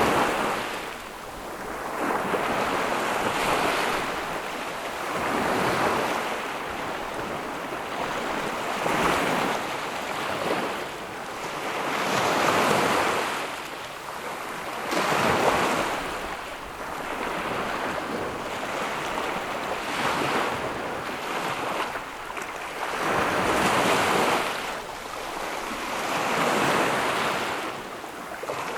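Ocean waves breaking and washing up a sandy beach in repeated swells, each surge of surf rising and falling over two to three seconds, with some wind noise on the microphone.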